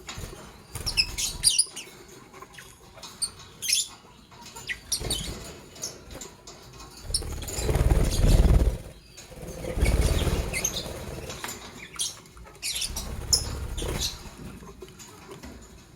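Lovebirds giving short, high chirps and squeaks here and there, with several bouts of low rustling noise, the loudest in the middle.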